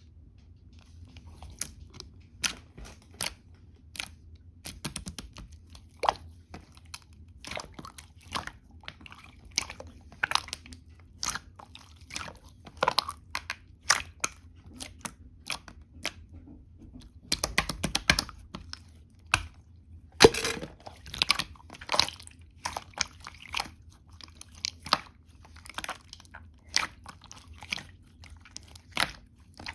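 White slime being pressed and squished by hand, giving irregular sticky clicks and air-bubble pops, one or two a second, with quick flurries of pops a little past halfway.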